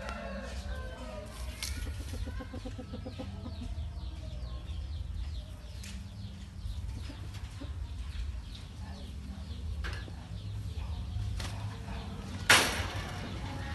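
Chicken clucking, a quick run of short notes in the first few seconds, over a steady low hum. A single loud sharp knock near the end.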